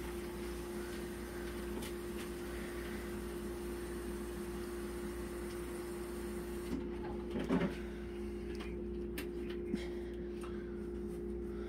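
Steady low mechanical hum with a constant pitched tone, like a running appliance or motor. A brief rustle rises over it about seven and a half seconds in, followed by a couple of faint clicks.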